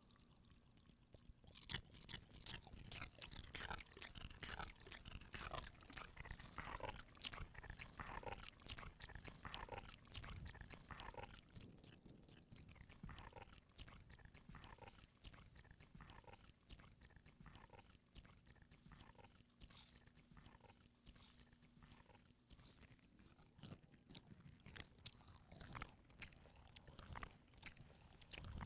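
Irregular crunching and clicking, dense for the first ten seconds or so after a quiet start, then sparser.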